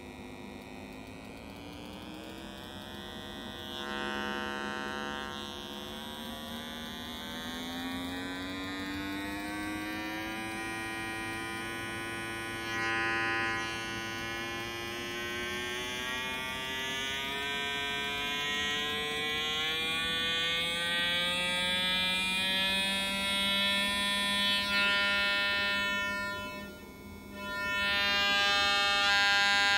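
Small loudspeaker on a breadboard amplifier circuit playing a signal-generator sine test tone that comes out buzzy and thick with overtones instead of clean, its pitch slowly rising, with brief noisy patches about four and thirteen seconds in. The noise is the sign of a missing decoupling capacitor to separate the AC signal from the DC.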